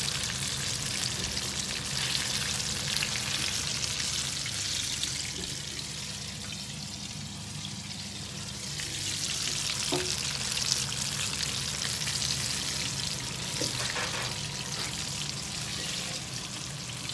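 Chicken pieces deep-frying in hot oil in a pan, a steady bubbling sizzle that turns softer for a few seconds midway.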